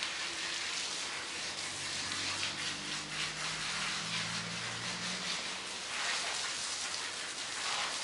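Garden hose spraying water onto a dog's wet coat and the pavement: a steady hiss and spatter of water.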